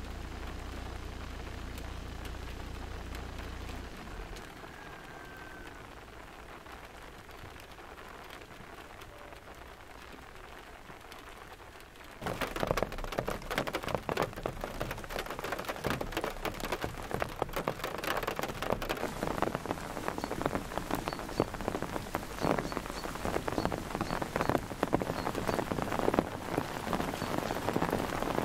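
Rain falling, with a dense patter of drops striking a surface close by; it comes in abruptly and loud about twelve seconds in, after a quieter hiss. A low steady hum runs underneath at first and stops about four seconds in.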